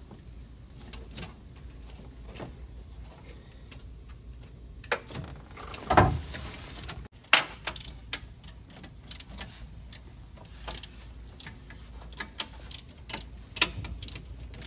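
Scattered clicks and knocks of pliers and small mounting hardware being worked by hand at a car's radiator support, with a louder knock about six seconds in.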